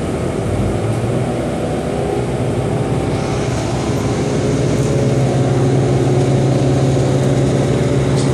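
City bus running, heard from inside the passenger cabin: a steady low engine and road hum that grows somewhat louder about halfway through as the bus moves along.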